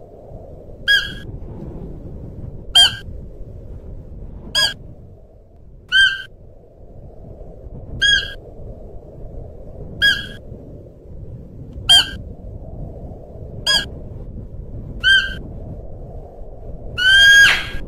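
Siberian musk deer calling: short, high, pitched calls repeated every second and a half to two seconds, ten in all, the last one near the end longer and louder, over a steady low background rumble.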